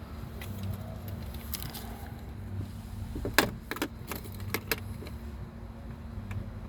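A few sharp clicks and rattles bunched about halfway through, like keys or small parts being handled, over a steady low hum.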